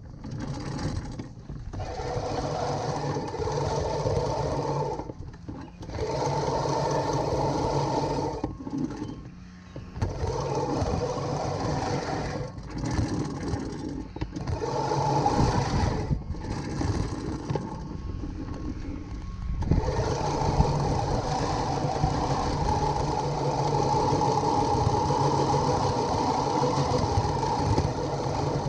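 Sun Joe MJ502M 20-inch manual reel mower pushed through short-cut Kentucky bluegrass, its spinning reel blades whirring as they cut. The running sound comes in stretches of a few seconds, broken by short breaks where the mower stops or turns.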